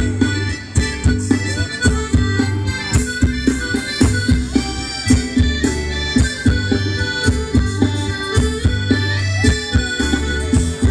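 Live Thai ramwong band music with no singing: a reedy, sustained melody from a khaen, a bamboo free-reed mouth organ, over a steady drum beat.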